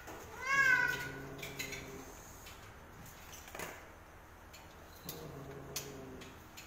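Bengal cats mating: a short wavering yowl about half a second in, then low drawn-out growling moans, one early and another near the end, with a few faint clicks between.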